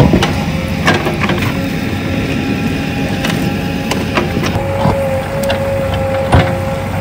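JCB backhoe loader's diesel engine running steadily with a constant high whine, while sharp knocks and clatters come every second or so, the loudest about six seconds in.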